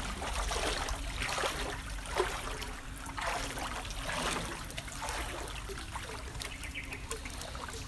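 Shallow floodwater sloshing and trickling softly and irregularly.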